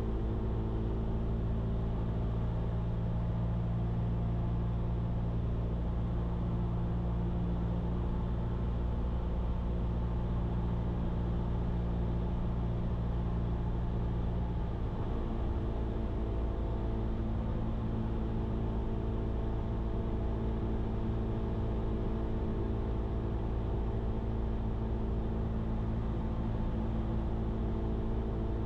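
Cessna 172's piston engine and propeller droning steadily in flight, heard from inside the cabin. The mix of its tones shifts about halfway through, while the loudness stays the same.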